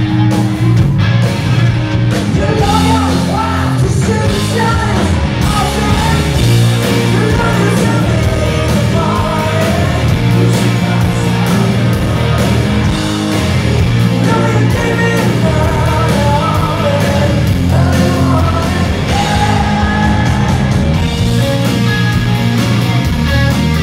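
Rock band playing live, with a female lead singer singing over the full band.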